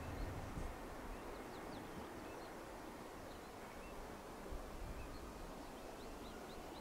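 Birds chirping over the faint, steady rumble of an Airbus A330-200 jet landing far off on the runway, with a faint rising whine near the end.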